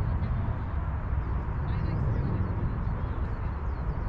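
Wind buffeting the microphone, a steady low rumble, with faint bird chirps from about two seconds in.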